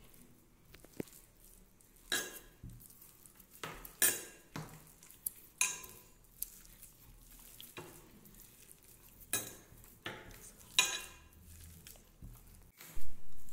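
Aloo bharta being mixed by hand in a glass dish: irregular sharp clinks and knocks against the glass, the loudest near the end.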